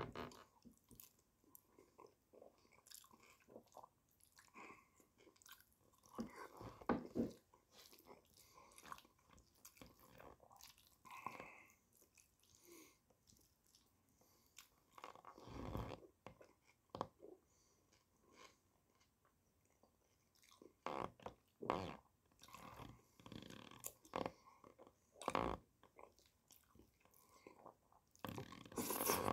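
A man chewing mouthfuls of rice in tomato sauce close to the microphone: faint, irregular chewing noises with a few louder short sounds scattered throughout.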